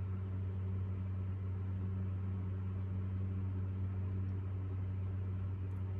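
Steady low machine hum, unchanging throughout, with a light hiss above it.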